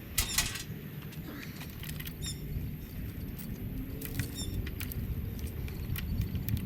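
Light clicks and a brief rattle of a chainsaw's chain and bar being handled while the thrown chain is refitted, over a low steady rumble. A bird's short call of quick falling notes repeats about every two seconds.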